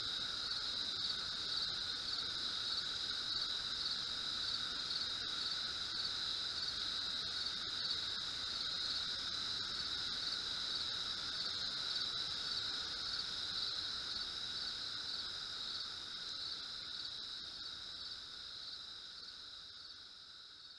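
Insects chirping in a steady, high-pitched trill, fading out near the end.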